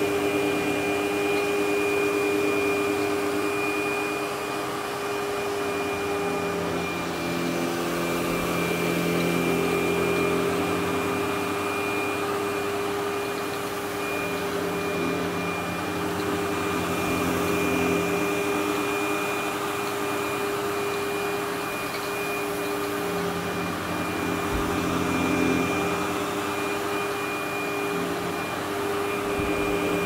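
SEBO Automatic upright vacuum cleaner running continuously with a steady high whine, pushed back and forth over a carpet mat. Its lower hum swells and fades every few seconds with the strokes.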